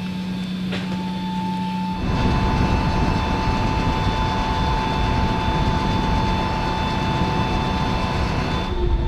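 Large aircraft engines running: a steady whine over a rumble, which gets abruptly louder and fuller about two seconds in and shifts again near the end.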